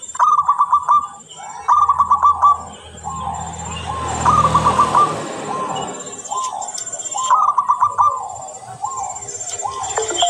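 Zebra dove (perkutut) singing: four bursts of quick clipped coos, with slower single rising-and-falling coo notes in between.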